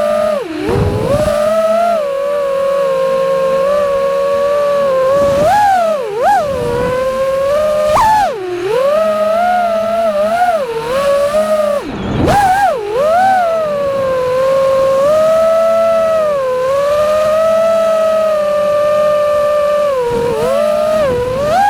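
FPV quadcopter's brushless motors whining, holding a steady pitch for long stretches, with sharp pitch dips and swoops as the throttle is chopped and punched again, several times.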